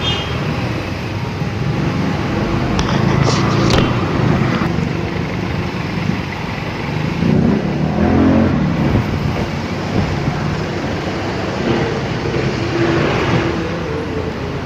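Traffic in a jam: motorcycle and car engines running at low speed close by, with one engine's pitch rising and falling about seven to eight seconds in.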